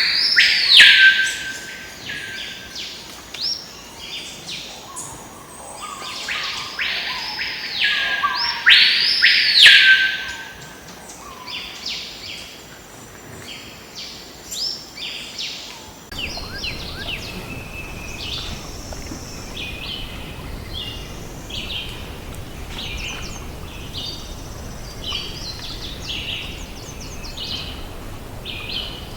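Birds calling: three loud, arching calls in the first ten seconds, then many shorter, softer chirps. A steady low background hiss comes in just past halfway.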